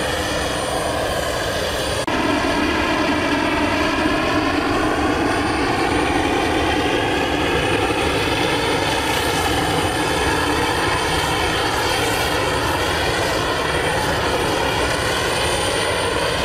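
Military transport plane's turboprop engines running steadily: a loud, continuous sound with many slowly wavering tones. It steps up louder abruptly about two seconds in.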